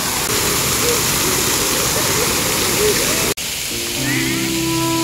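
Splash-pad fountain jets spraying and splashing water in a steady rush. About three seconds in it cuts off suddenly and soft background music with long held notes begins.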